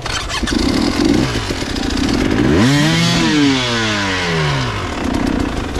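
Motorcycle engines running with a steady low rumble. About halfway through, one engine note rises sharply and then falls away over about two seconds.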